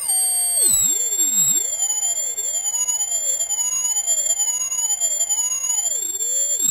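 Piezo tweeter of a homemade ultrasonic dog-bark deterrent, driven by a sound generator, giving out a loud, steady high-pitched electronic tone. Fainter tones under it warble up and down about once a second.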